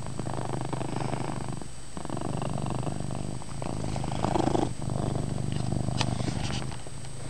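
Domestic cat purring loudly and continuously, the purr swelling and dipping with each breath in and out.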